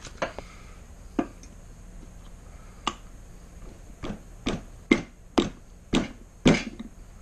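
About nine sharp knocks as a shaft seal is pressed and tapped by hand into the bore of a Volvo Penta DP-C1 gimbal bearing housing. They are sparse at first and come about twice a second over the last three seconds.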